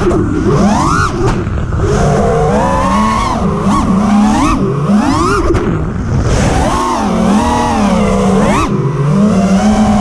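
FPV racing quadcopter's brushless motors and propellers whining, the pitch swooping up and down again and again as the throttle is worked through rolls and dives.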